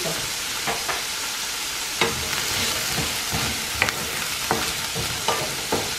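Chickpeas sizzling as they fry in oil in a nonstick skillet, a steady hiss. From about two seconds in, a wooden spoon stirs them, with scattered clicks and knocks against the pan.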